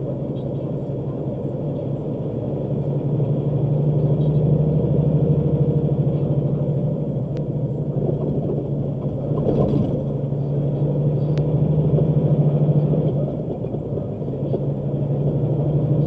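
Engine and road noise of the recording vehicle heard from inside the cab: a steady low drone that grows louder about three seconds in and again around twelve seconds, with a short knock near the middle.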